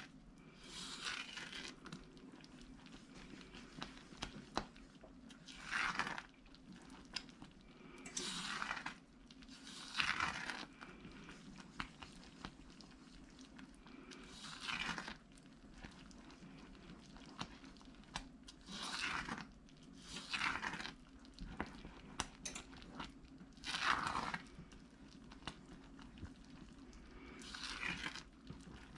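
Spatula scraping around a heavy saucepan while stirring a boiling fudge mixture, in short strokes every one to four seconds, over a steady low hum.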